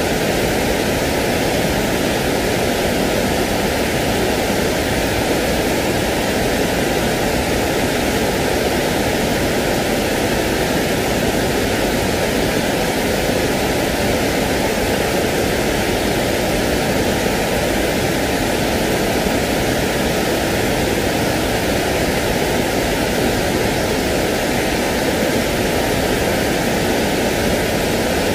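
Steady, even noise like white or pink noise for soothing a baby to sleep, a constant hiss from deep to high with no changes or events.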